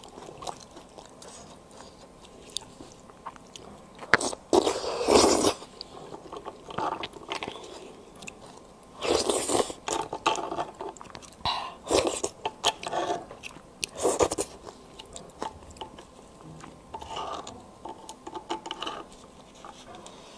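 A thin metal pick and spoon scraping and clicking against split beef bones as the marrow is dug out, with several louder scraping bursts of about a second each among small ticks.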